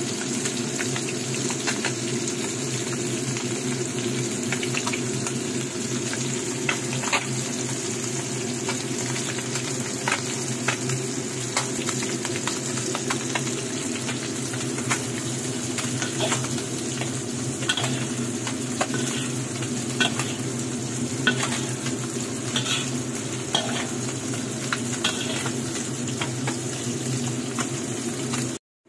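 Oil sizzling steadily under food frying in a pan, while a utensil stirs and tosses cabbage and pork, clicking and scraping against the pan at uneven intervals. The sound cuts off abruptly near the end.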